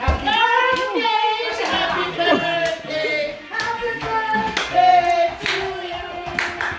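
A group of voices singing together, with hand clapping scattered through the song.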